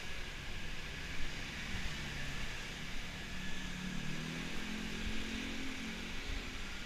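Street traffic of cars, scooters and buses: a steady hiss of passing vehicles, with an engine's hum rising a little in pitch and then fading over the middle few seconds as a vehicle goes by.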